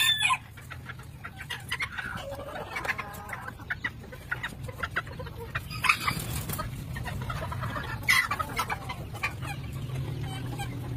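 Roosters clucking and calling in short, scattered notes, with a loud call right at the start and louder squawks about 6 and 8 seconds in. A low steady hum lies underneath.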